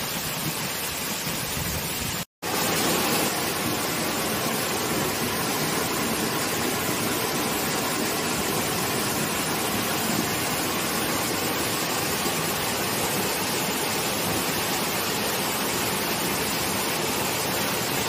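Waterfall pouring down a high rock face into a stream: a steady, even rush of falling water, with a brief cut in the sound about two seconds in.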